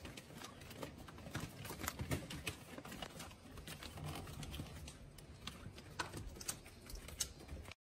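Japanese quail moving about on newspaper: light, irregular tapping and paper rustling.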